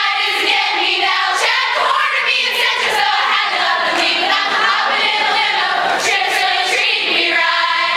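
A large group of women singing together as a choir, several pitches sounding at once.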